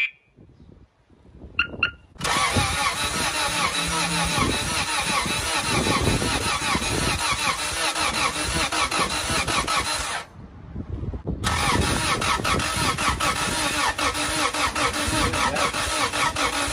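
Turbocharged LS VTEC four-cylinder engine of a 1999 Honda Civic firing up on its first start about two seconds in and running. The sound stops suddenly about ten seconds in and resumes a second later.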